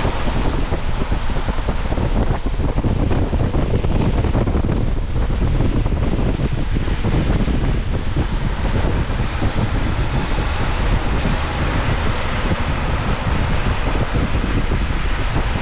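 Steady wind and road noise from a moving car: a constant low rumble with a hiss above it.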